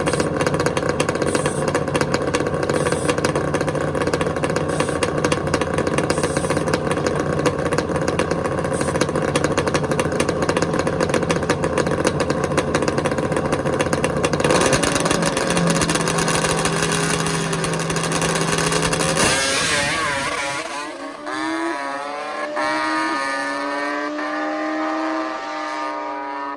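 Kawasaki H2 750 three-cylinder two-stroke drag bike running at high revs, loud and continuous. About twenty seconds in the sound drops away, and the engine is heard further off with its pitch rising and falling as it revs.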